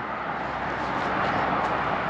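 Steady vehicle noise, an even rumble and hiss with no clear pitch.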